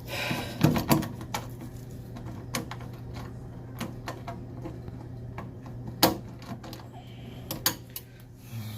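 Irregular sharp clicks and knocks of hand tools and metal parts being handled during reassembly of a commercial dishwasher, the loudest knock about six seconds in, over a steady low hum.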